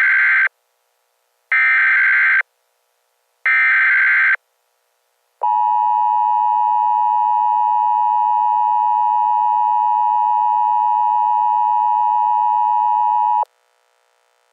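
Emergency Alert System header: three bursts of warbling digital data tones, about a second each with a second's gap between them, then the long, steady EAS attention tone. The tone holds for about eight seconds and cuts off abruptly about a second before the end.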